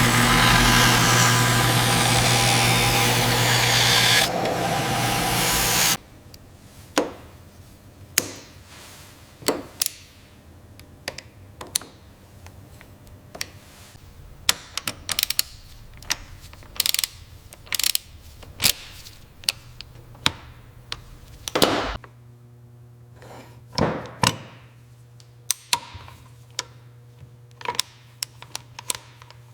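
Workshop tool work: a loud steady hiss with a hum under it cuts off suddenly about six seconds in. Then come scattered clicks, taps and knocks of tools being handled, with a brief low motor hum about twenty seconds in.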